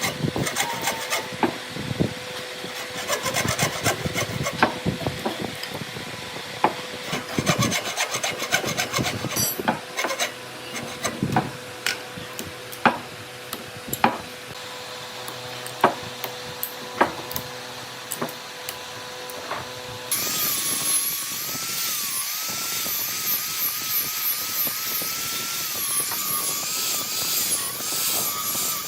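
A hand tool scraping and rasping through wood in repeated strokes, with sharp knocks scattered among them. About twenty seconds in, the woodwork stops and a steady motor-like whine that wavers in pitch takes over.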